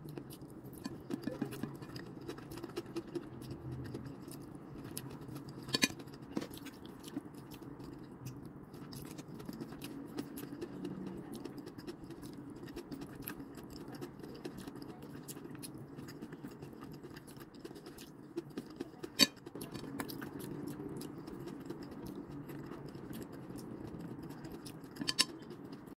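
Chewing of stir-fried rice noodles and cabbage, with small clicks of wooden chopsticks against a plate throughout and three sharp louder clicks, about 6, 19 and 25 seconds in, over a steady low hum.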